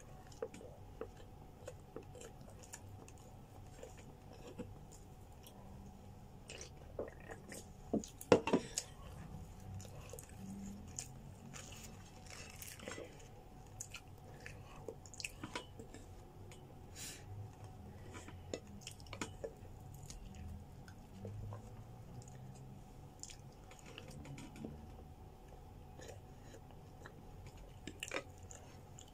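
Close-miked chewing and mouth sounds of someone eating grilled chicken, flatbread and fries, with scattered small crunches and clicks. A sharp louder click about eight seconds in, over a faint steady hum.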